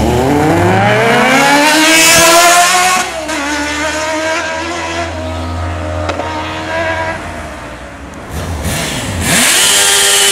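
Sport motorcycle engines accelerating hard: the engine note climbs for about three seconds, drops at an upshift and holds lower as the bike rides off, then another engine revs up sharply near the end.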